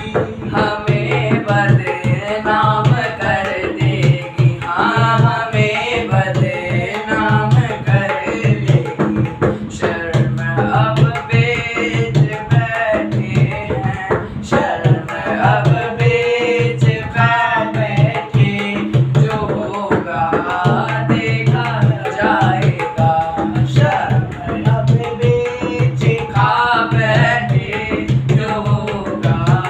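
A young man singing a Hindi devotional bhajan over a steady hand-drum rhythm.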